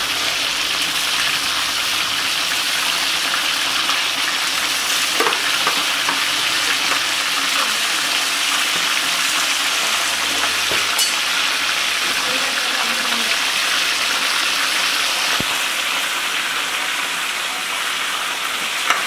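Beef and chicken drumsticks frying in hot oil in a cast-iron kazan, a steady sizzling hiss with a few light clicks.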